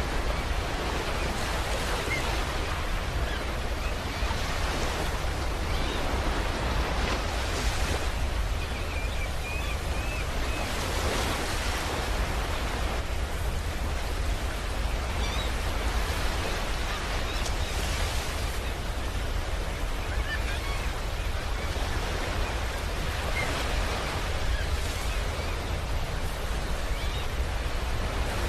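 Steady rushing noise over a deep rumble, the hiss swelling and easing every second or two like surf: an ambient sound presented as the sound of the star UY Scuti.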